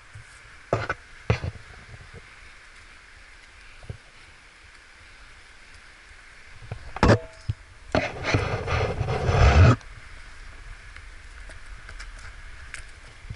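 A climber moving on a rock slab, close to a head-mounted camera. Hands, shoes and gear knock and scrape on the rock: two sharp knocks about a second in and a louder one past the middle. Then comes a rough rustling noise lasting nearly two seconds.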